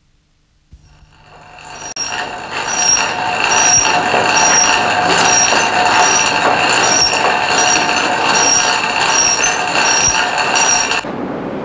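A bicycle running along, heard close to its drivetrain: a steady rushing noise of chain and wheels with a short high squeak about every 0.8 s. It swells up over the first few seconds and cuts off suddenly near the end.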